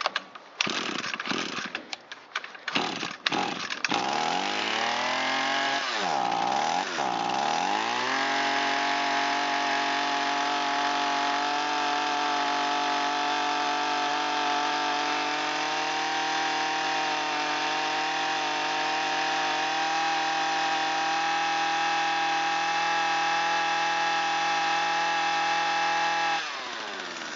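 Echo SRM225 string trimmer's small two-stroke engine being pull-started on choke: a few quick pulls, then it catches, with its speed dipping twice before it runs steadily at high speed. Near the end the speed drops sharply. It is running with the carburetor mixture screw turned fully out.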